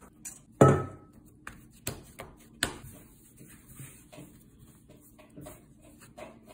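Hands working flour-tortilla dough: a thump about half a second in and a few sharp knocks and taps over the next two seconds, then faint, soft sounds of the dough being kneaded and pressed on a wooden table.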